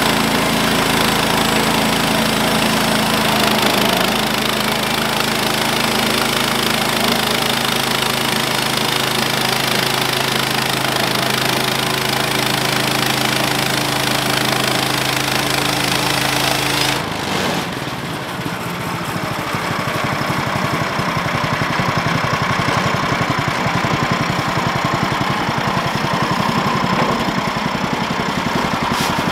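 Small gasoline engine of a Woodland Mills HM130 portable bandsaw mill running fast and steadily. About two-thirds of the way through, its even note changes abruptly to a rougher, uneven running sound, then builds back up in level.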